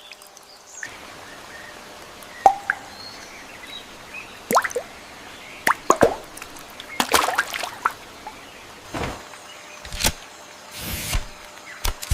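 Irregular water plops and drips over a faint steady hiss.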